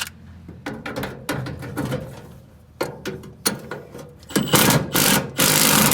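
A tool working loose the fasteners that hold a grille on: short rattling mechanical bursts, then a longer and louder run of rattling near the end.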